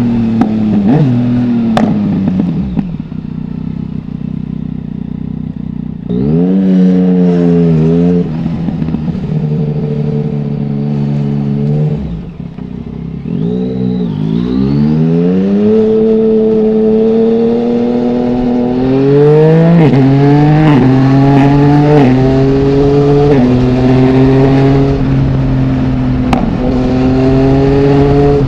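Yamaha MT-09's three-cylinder engine through an Akrapovic full exhaust with no dB killer. The revs fall as the bike slows, with a quieter stretch off the throttle. Then it accelerates hard through a run of quick upshifts, each rise in revs cut off by a gear change, and settles to steady running.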